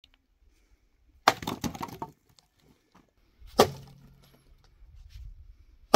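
Dry wooden branches snapping as they are broken by hand for firewood: three sharp cracks about two seconds apart, the first trailing off in a short splintering crackle.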